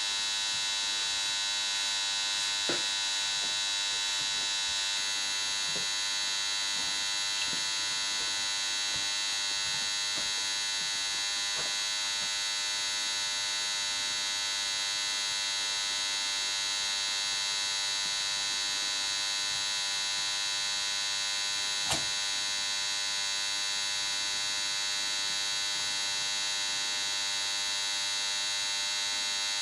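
Steady electrical hum and high whine, with a few light clicks as metal engine parts are handled, the sharpest about two-thirds of the way through.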